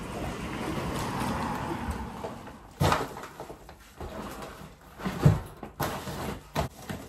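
A steady background sound fading out over the first two seconds, then a few separate knocks and bumps, like things being handled or a cupboard door closing; the loudest comes a little past the middle.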